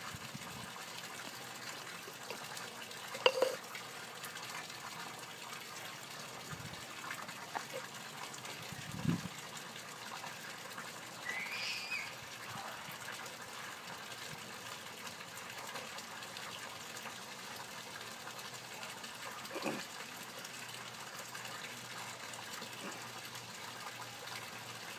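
Steady water-like rushing in the background, with a few scattered knocks and clicks from PVC pipe fittings being handled and glued together; the sharpest knock comes about three seconds in. A short chirp sounds about halfway through.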